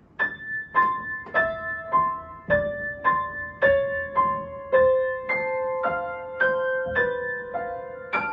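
Background piano music: a slow, evenly paced melody of ringing notes, about two a second, each left to sustain and fade.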